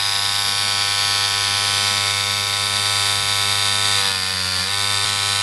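Dragonfly X2 rotary tattoo machine running at 9 volts with its give screw backed off one full turn: a steady buzz whose pitch sags briefly about four seconds in.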